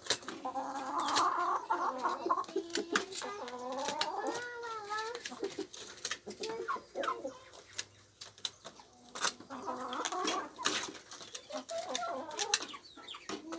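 A flock of hens with a rooster clucking and giving drawn-out, wavering calls while feeding, with many sharp taps of beaks pecking at the floor and feeder.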